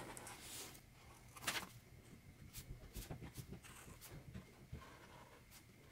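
Faint scratching of a felt-tip ink pen drawing lines on heavy, textured sketchbook paper: a series of short strokes, one a little louder about a second and a half in.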